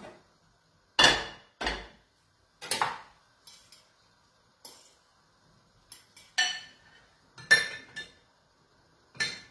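Dishes and cutlery being handled: a ceramic plate and a bowl knocked and clinked with a metal utensil, about ten sharp, irregular clinks and knocks with short ringing, the loudest about a second in.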